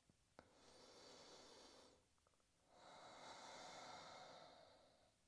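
A person's faint, slow breathing: two soft breaths, the second longer and a little louder, with a small click near the start.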